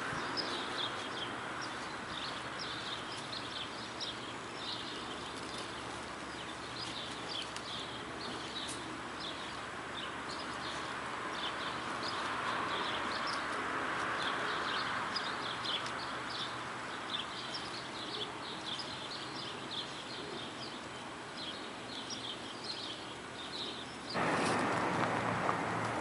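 Small songbirds chirping repeatedly over a steady outdoor hiss. Near the end the hiss suddenly grows louder and fuller.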